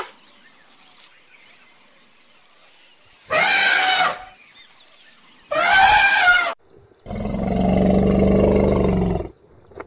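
Elephant trumpeting: two short, high, brassy calls about two seconds apart, starting about three seconds in, then a longer, lower, rough roaring call of about two seconds.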